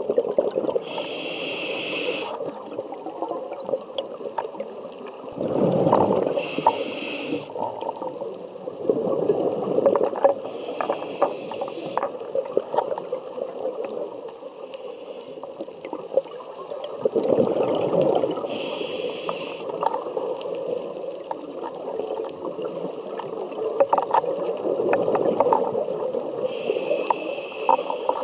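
Scuba diver breathing through a regulator underwater: a short hiss with each inhale, about five times, alternating with a louder gurgling rush of exhaled bubbles.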